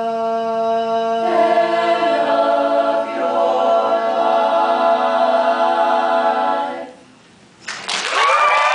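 Mixed a cappella choir holding the song's final chord, a lead voice singing over the sustained harmony. The chord cuts off about seven seconds in, and after a brief hush the audience breaks into applause and cheering.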